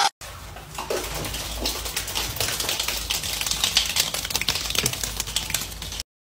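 Several penguins' feet pattering and clicking quickly and unevenly on a wet, hard floor, over a low hum. It cuts off abruptly near the end.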